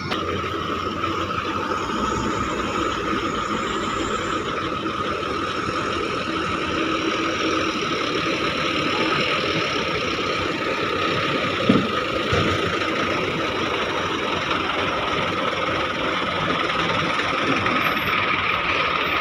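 Heavy diesel machinery, an excavator and a dump truck, running steadily at a loading site. A single sharp knock comes about twelve seconds in, with a lighter one just after.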